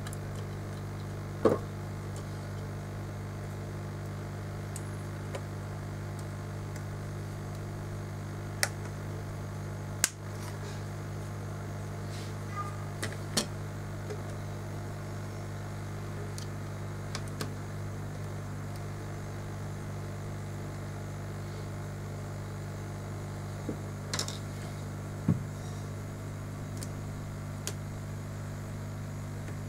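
Steady electrical mains hum, with a few scattered sharp clicks and taps over it.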